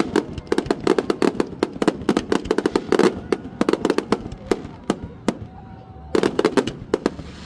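Aerial fireworks going off in a rapid barrage of sharp cracks and bangs. The cracks thin out about four and a half seconds in, come back as a short dense cluster about six seconds in, then ease off.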